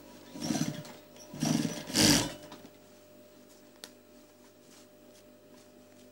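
Sewing machine stitching through layers of quilted jacket fabric in three short runs in the first two and a half seconds, the last the loudest. A single sharp click follows near four seconds, over a steady low hum.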